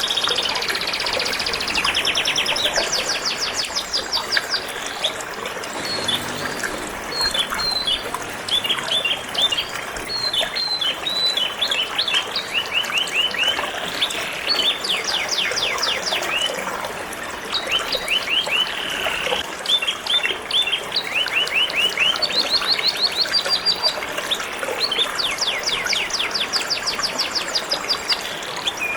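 Canary singing in long, rapid trills and chirps, over a steady trickle of flowing water.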